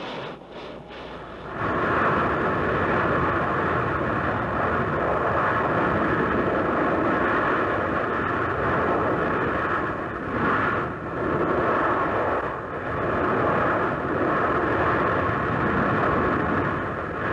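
Steady loud rushing noise of molten lava churning at a volcanic vent, building up about a second and a half in, then swelling and dipping a few times.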